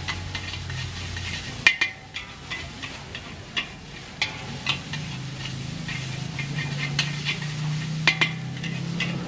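A metal spatula scraping and clanking against a large black wok as rice vermicelli is stir-fried, over a steady sizzle. The strikes come irregularly, the sharpest about two seconds in and a pair near the end, and a low steady hum sets in about halfway.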